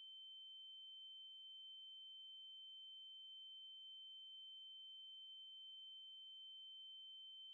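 A faint, steady, high-pitched electronic sine tone held at one pitch, with a much fainter lower tone beneath it: a ringing-in-the-ears effect standing for hearing loss.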